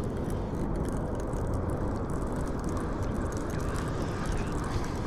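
Steady, low rumbling outdoor noise with no distinct events.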